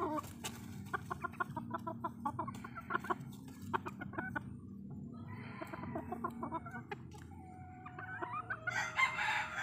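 Gamefowl clucking in quick runs of short notes, then a rooster crows near the end, one long drawn-out call that is the loudest sound here.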